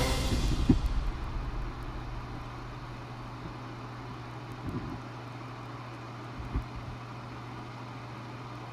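Music fading out at the start, then a steady low hum with two faint knocks in the second half.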